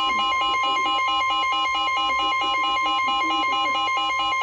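NOAA Weather Radio warning alert tone, a single steady tone near 1050 Hz, sounding together with weather-radio receivers' alarms beeping rapidly in alternating pitches, about five beeps a second. It signals that a warning broadcast, here a special marine warning, is about to begin.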